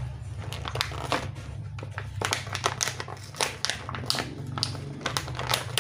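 Plastic crinkling and rustling with many small irregular clicks and knocks, as toy packaging and plastic toy pieces are handled.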